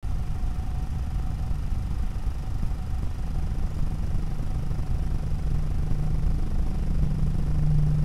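Low rumbling background noise from a night-vision trail camera's microphone, with a faint steady whine. A steady low hum comes in about three seconds in and grows louder toward the end.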